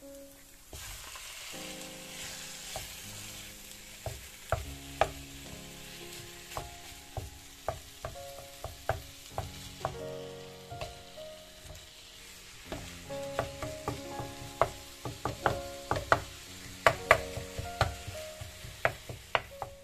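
Minced meat and chopped onions frying in a pan: a steady sizzle that starts as the meat drops in about a second in, with a wooden spatula tapping and scraping against the pan as the meat is broken up and stirred, the taps coming thick and fast in the second half.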